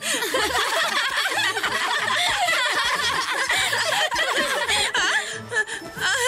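Voice-acted cartoon laughter: a girl and a small rabbit character laughing hard together, dying down near the end.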